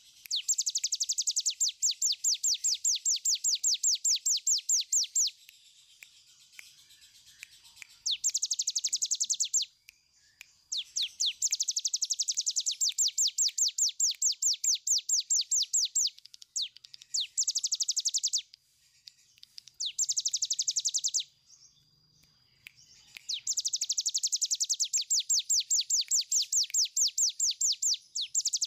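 A caged cigun, a prinia, singing its long rattling trill ("ngebren"). Each bout is a rapid run of evenly repeated sharp, high notes, about six a second, lasting one and a half to five seconds, with short pauses between bouts.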